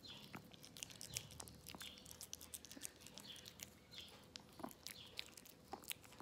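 A small Chihuahua biting and chewing soft banana, with quick, irregular wet smacking and clicking of its mouth, several times a second. The sound is faint.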